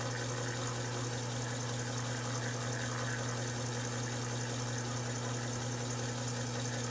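Taig micro lathe running steadily, its motor and spindle giving a constant low hum while a lathe tool is fed slowly into a mild steel workpiece.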